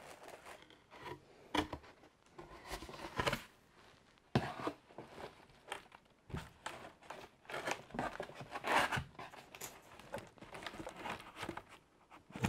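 Cardboard packaging rustling and scraping as cardboard inserts and an inner box are handled and lifted out of a cardboard shipping box, in short, irregular spurts with quiet gaps between.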